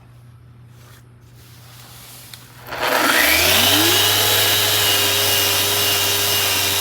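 Electric power sander with its dust extractor starting about three seconds in: a rising whine as the motor spins up, then a steady, loud running whine.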